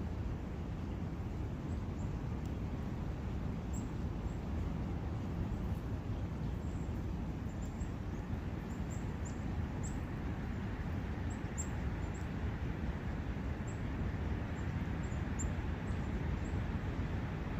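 Steady rushing of a forest brook, with a few faint, short, high chirps scattered through it.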